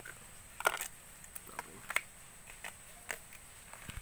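A small knife slicing through a banana heart onto a plastic container lid: about half a dozen short, sharp cutting clicks at an irregular pace.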